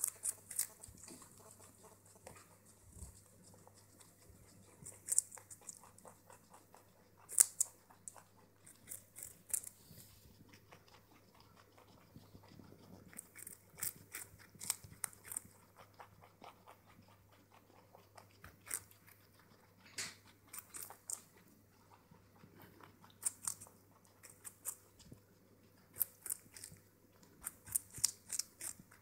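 A rabbit and a guinea pig gnawing on a raw carrot: irregular sharp crunching bites, sometimes in quick runs of several, with quiet gaps between.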